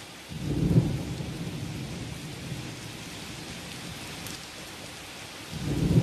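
Thunderstorm: steady rain with a clap of thunder about half a second in that rumbles on and fades slowly, and a second roll of thunder building near the end.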